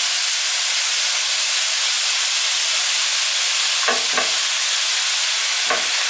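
Ground beef, pork and veal frying over onion in a stainless steel skillet: a steady sizzle, with the spatula scraping and knocking against the pan a couple of times, near the middle and near the end.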